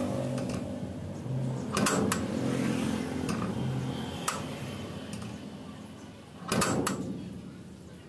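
Homemade welded steel self-closing door latch worked by hand: metal clacks as the handle is pulled and the round steel bolt slides in its keeper, then a louder clank of several quick clicks about six and a half seconds in as the bolt snaps shut.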